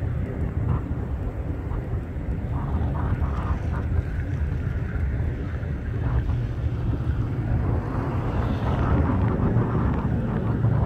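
Boeing 737-700's CFM56-7B jet engines at takeoff thrust, heard from afar as a steady low rumble that grows a little louder near the end as the jet lifts off and climbs.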